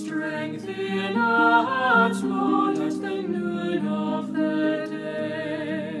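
Music: singing voices over held chords.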